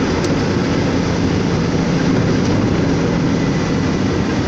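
Truck engine running steadily with tyre and road noise on a wet road, heard from inside the moving truck's cab.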